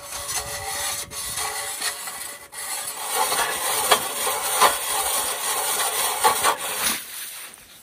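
Hand-cranked ice auger boring through lake ice: a steady scraping of the blades shaving ice as it turns. It falls away shortly before the end.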